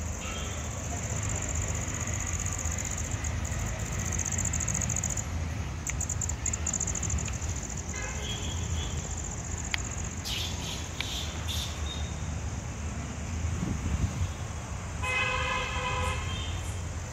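Steady low background rumble, with a vehicle horn honking once for about a second near the end.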